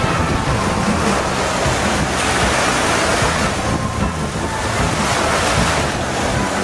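Surf washing onto the shore, with wind buffeting the microphone.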